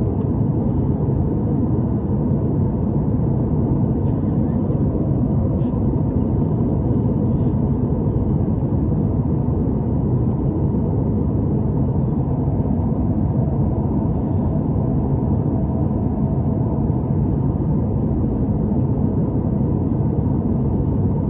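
Steady in-flight cabin noise inside a Boeing 737-900ER during descent: a low, even rush of airflow over the fuselage with the drone of its CFM56 turbofan engines, holding at one level throughout.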